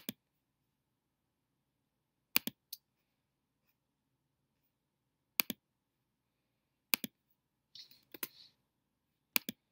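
Computer mouse clicking: sharp single clicks and quick double clicks every second or two, with a short soft scuffing noise about eight seconds in.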